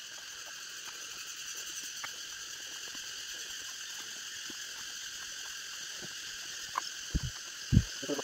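Steady chorus of forest insects, a shrill buzzing in several high bands that holds unchanged. A few short dull thumps come near the end.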